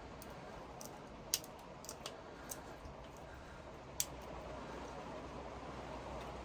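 Small sharp clicks and snaps of a plastic headlamp switch being worked apart by hand, scattered irregularly, the loudest two about a second in and about four seconds in.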